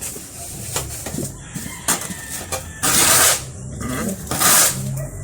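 A shovel scraping across a cement floor as droppings are pushed off it, two loud scrapes of about half a second each, with a few knocks, and animal calls underneath.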